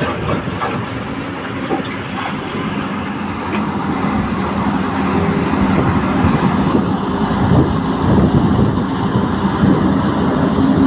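Diesel engine of a backhoe loader running as the machine moves over gravel, getting louder about halfway through.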